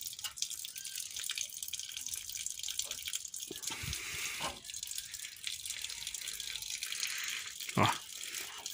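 A thin stream of water runs steadily from the small tap of a stainless steel water barrel onto the ground. A couple of faint knocks come around the middle, and a sharper knock comes near the end.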